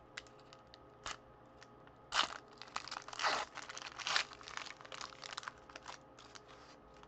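Foil wrapper of a trading-card pack crinkling and tearing as it is pulled open by hand: a few light crinkles, then a run of crackly rips about two seconds in, thinning to lighter crinkles toward the end.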